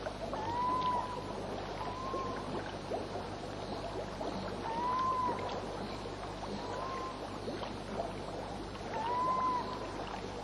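Water of a hot-spring pool trickling and lapping, with many small splashes. A short whistled call that rises and falls repeats about every two seconds, alternately stronger and weaker.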